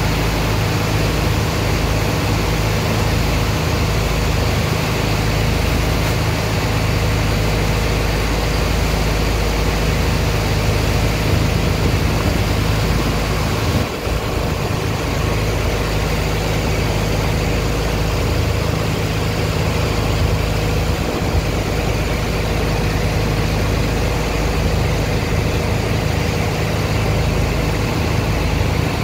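Steady drone of a large pump engine running, under the continuous rush of high-pressure water jets spraying into wet sand in a barge hold.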